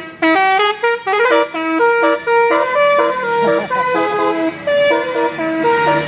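Indonesian tour bus's telolet basuri musical horn playing a fast tune of short notes that step up and down, loud and continuous.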